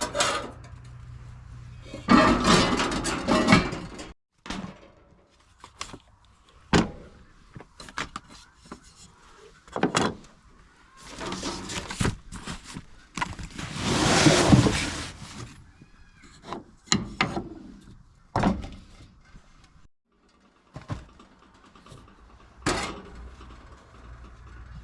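Knocks, thuds and clatter of camp cooking gear and food containers being handled while setting up to cook, with a few longer rustling or rushing noises among the knocks.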